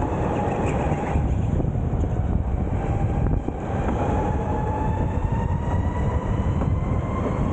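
Onboard sound of a Sodi electric kart at speed on the track: a thin electric-motor whine over heavy rumble from the tyres and wind on the microphone. The whine dips a little around the middle, then climbs steadily toward the end as the kart accelerates.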